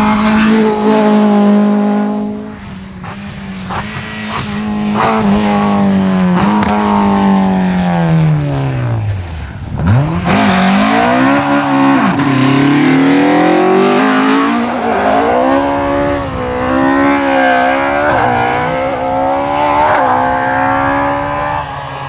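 Two rally cars at full throttle. The first runs past close by, and its engine note sinks steadily for several seconds as it drives away. About ten seconds in, a Mk2 Ford Escort rally car's engine takes over, its note rising and dropping again and again through gear changes and lifts.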